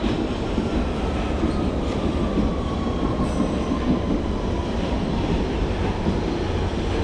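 Underground train running: a steady rumble of wheels on the track, with a faint whine that slowly falls in pitch over the first few seconds.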